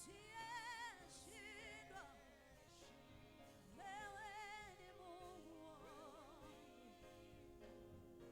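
Quiet gospel-style singing, with wavering vibrato on the held notes, over steady sustained accompanying notes.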